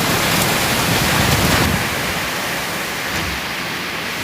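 Hailstorm: hail and heavy rain pouring down in a steady dense hiss, easing slightly after about two seconds, with wind rumbling on the microphone.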